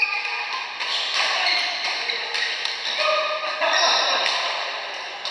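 Badminton rally: sharp racket strikes on a shuttlecock every second or so, mixed with short squeaks of court shoes on the mat floor, ringing in a large echoing sports hall.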